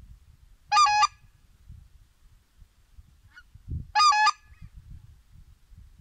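Two loud, two-note goose honks about three seconds apart, each lasting about a third of a second.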